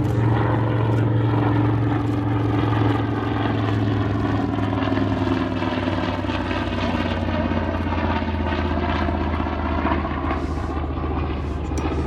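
Grumman TBM-3R Avenger's Wright R-2600 twin-row radial piston engine and propeller running steadily in a low fly-by, the pitch sliding slowly lower as the aircraft passes.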